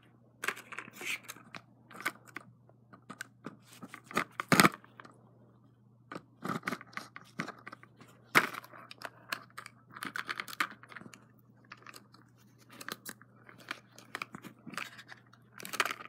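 A knife cutting and prying at a stiff clear plastic case: irregular scraping, crackling and clicking, with a few sharp snaps, the loudest about four and a half seconds in.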